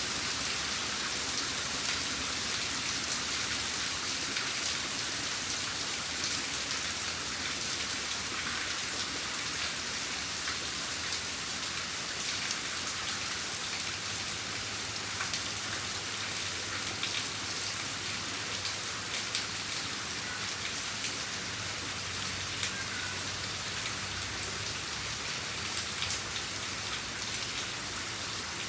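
Steady rain falling, an even hiss with scattered drops ticking on a surface. A faint low hum joins about halfway through.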